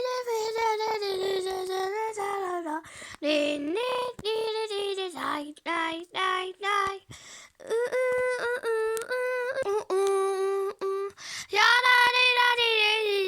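A child singing a song alone, unaccompanied, in short phrases of held notes with small breaks between them.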